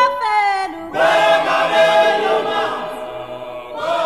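Choir singing long held notes as background music.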